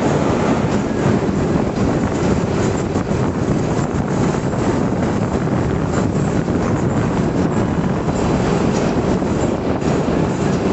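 Steady rush of wind and road noise from a moving vehicle, with no engine note standing out.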